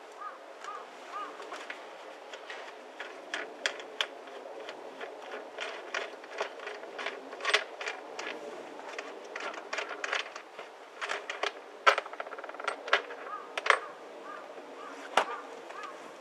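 Irregular sharp metallic clicks and clinks, some louder than others, like tools and small parts being handled, with short repeated chirps from a small bird at the start and again near the end.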